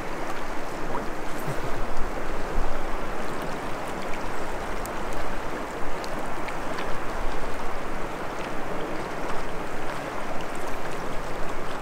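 River current rushing steadily around a wading angler, an even wash of moving water with a low rumble underneath.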